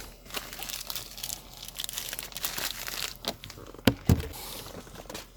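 A shipping package being torn open and its wrapping crinkled and handled, in irregular crackles, with two sharp knocks about four seconds in.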